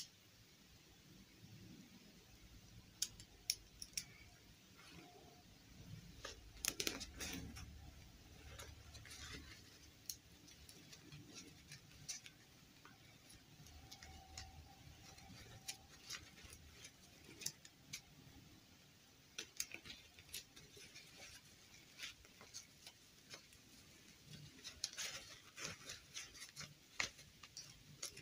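Faint, scattered clicks and rustles of hands handling a plastic fashion doll and working a fabric dress onto it, with small bunches of clicks now and then.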